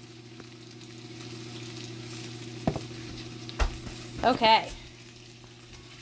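Diced potatoes and onions frying in a cast-iron skillet, a steady sizzle, with two sharp knocks a little under a second apart near the middle.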